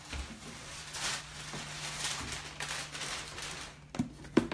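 Parchment paper rustling and crinkling as it is handled on a work table, with two sharp knocks near the end.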